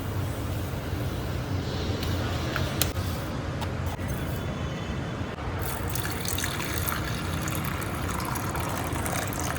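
Water running steadily, with a few small clicks and knocks.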